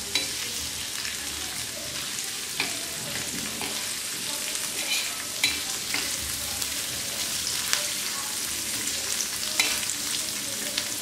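Dried Bombay duck sizzling in hot oil with ginger-garlic paste in an iron tawa, being fried to take off its strong smell. A metal spatula stirs and turns the fish, with sharp clicks and scrapes against the pan every second or two.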